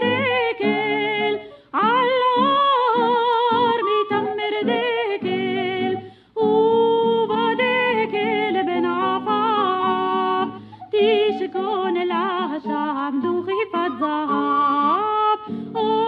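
A woman singing a Hebrew song to a traditional melody of oriental origin, her voice wavering and ornamented, over an instrumental arrangement. The singing comes in phrases with short breaks about two, six and eleven seconds in.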